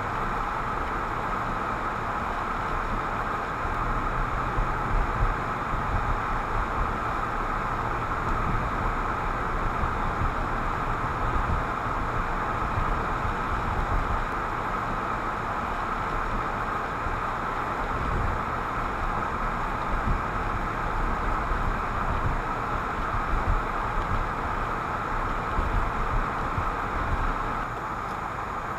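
Steady road and engine noise of a moving car heard from inside the cabin through a dashboard camera's microphone, with an uneven low rumble and small bumps from the road surface.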